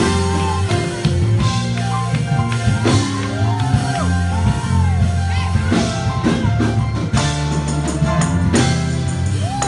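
Gospel music with a drum kit playing a steady beat under sustained bass notes, and a voice singing over it.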